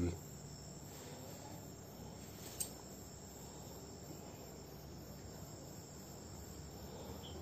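Crickets chirping steadily and faintly, a high continuous trill. A single small click sounds about two and a half seconds in.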